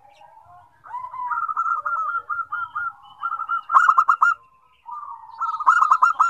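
Zebra doves (perkutut) cooing in fast staccato trills, two songs overlapping. The trills peak in two loud bursts, about four seconds in and again near the end.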